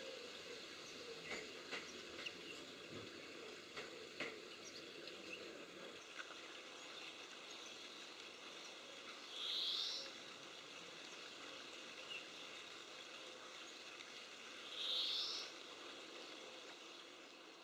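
European greenfinch giving two rising calls, each about half a second long and about five seconds apart, over a steady outdoor background hiss, with a few faint ticks in the first few seconds.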